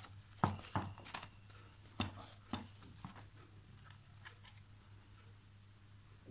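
Handling noise from a plastic handheld infrared thermometer and its packaging being picked up and turned over in the hands: a few light clicks and knocks in the first three seconds, then only faint taps, over a low steady hum.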